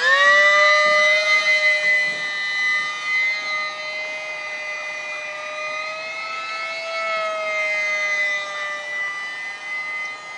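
Electric motor and propeller of a ParkZone Icon 5 ultra micro RC flying boat, the whine sweeping sharply up in pitch as the throttle opens, then holding a steady high whine with slight wavers in pitch.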